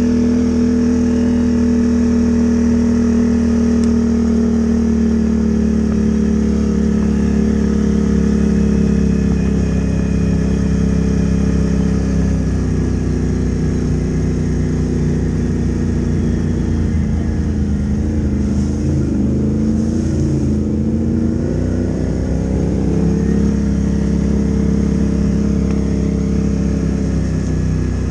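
Can-Am ATV's V-twin engine running steadily under way, its pitch wavering briefly with the throttle about two-thirds of the way through.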